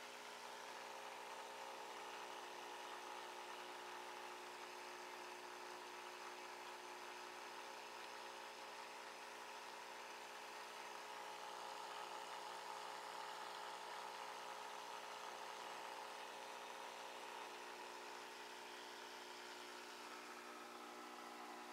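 Steady hum of saltwater aquarium equipment: a low drone of several steady tones over a faint hiss.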